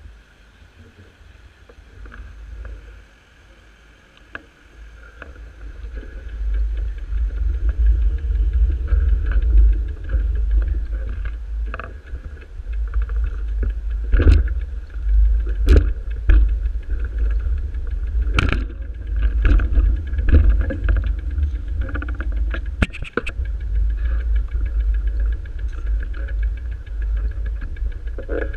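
Uneven low rumble on the microphone of a handheld camera being carried while walking, louder after about six seconds, with a few sharp knocks from the camera being jostled.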